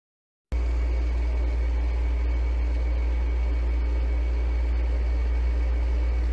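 Room air conditioner running: a steady low hum with an even whir and a faint high whine, starting abruptly about half a second in.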